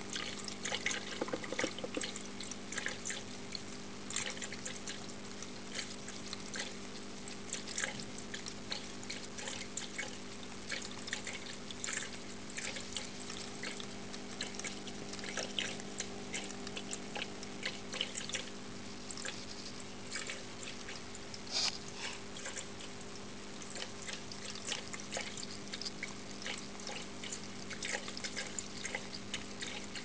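Electric cat water fountain running: its pump hums steadily under water trickling down the dome. A cat laps at the stream, adding many short, irregular wet splashes.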